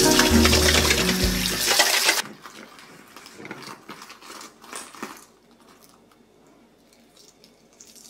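Cold tap water running hard onto freshly boiled eggs in a stainless steel colander in the sink, cutting off abruptly about two seconds in. It is followed by a few faint taps and clicks as an eggshell is cracked and peeled.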